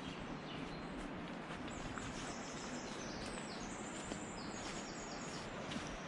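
Quiet forest ambience: a steady low hiss, with high-pitched birdsong in short repeated phrases from about two seconds in until near the end, and faint footsteps on a dirt path.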